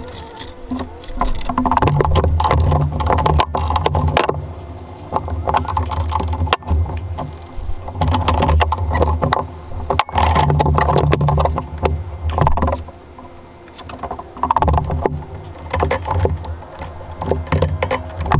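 Impact wrench running in repeated bursts of one to three seconds, spinning off the wheel nuts on a Can-Am Maverick side-by-side, with clatter between bursts.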